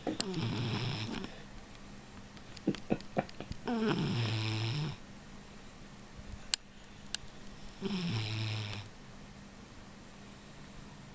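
A dog snoring: three long rattling snores about four seconds apart, each settling into a low buzz. A few short sharp clicks fall between them.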